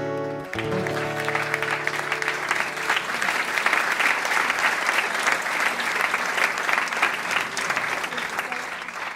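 Steel-string acoustic guitar's final chord ringing out, then a seated audience applauding for several seconds.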